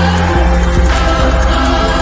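Background pop music in an instrumental stretch without singing, with a strong bass line.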